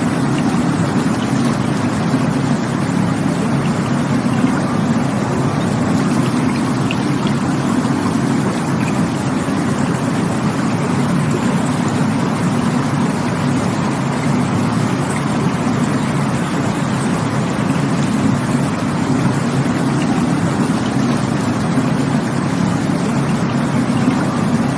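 Rushing water of a stream, a steady unbroken rush with most of its weight in the low range.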